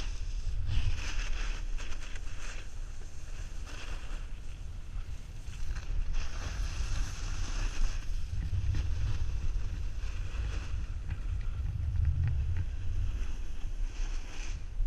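Snowboard sliding over packed snow, its edge scraping in swelling surges as the rider turns, over a steady low rumble of wind buffeting the microphone.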